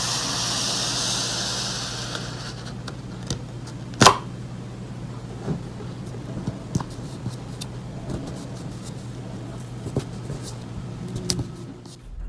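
Paper being handled and set down on a desk: a hiss of sliding paper for the first two seconds, then scattered taps and knocks, the loudest about four seconds in, over a steady low hum.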